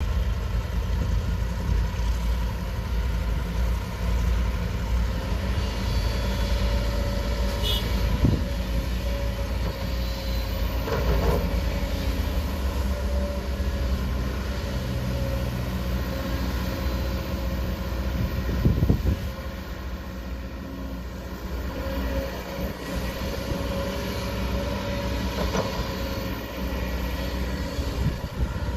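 Kobelco 20-ton excavator's diesel engine running steadily while it digs, with a steady tone over it and a few sharp metallic knocks, the loudest about two-thirds of the way through.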